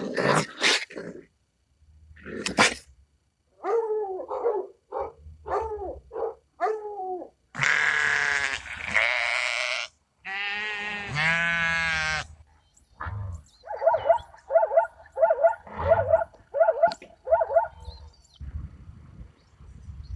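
A string of different animal calls, cut one after another. First comes a short series of about six falling yelps, then a harsh noisy call and a long wavering bleat. Near the end there is a quick run of about eight short, evenly spaced calls.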